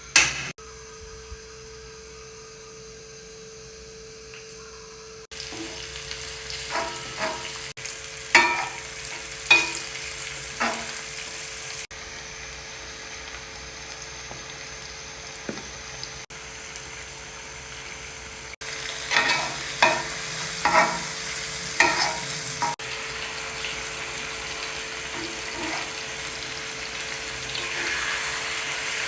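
Food sizzling as it fries in a pan, with a steady hiss. Two runs of sharp clinks and knocks come from a utensil striking and scraping the pan during stirring, one about a third of the way in and one past the middle.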